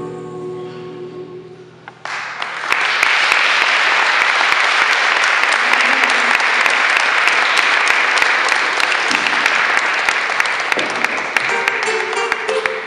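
The last notes of a song die away, then about two seconds in an audience breaks into loud, steady applause that thins out near the end.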